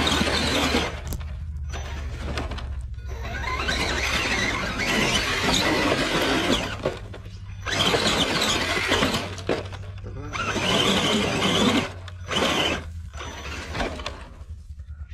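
Scale RC crawler's tyres spinning on loose dirt, spraying soil and stones as it claws its way up a steep dirt slope, in several bursts of a few seconds each with short pauses between.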